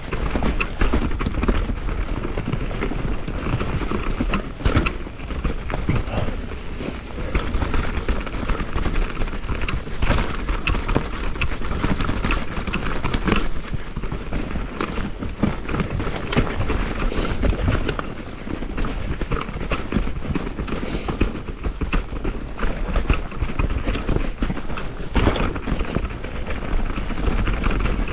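Mountain bike descending a rocky trail at speed: tyres crunching over loose rock and the bike rattling and clattering with dense, irregular knocks, over a constant low rumble of wind on the microphone.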